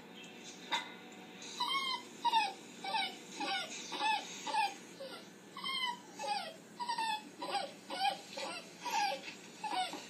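Dog whimpering: a run of short, high whining cries, about two a second, starting about a second and a half in.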